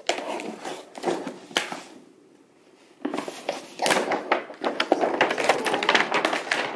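Cardboard toy box being handled and opened: taps and knocks on the cardboard, a short pause about two seconds in, then a dense stretch of crackling and rustling of cardboard and packing from about three seconds in.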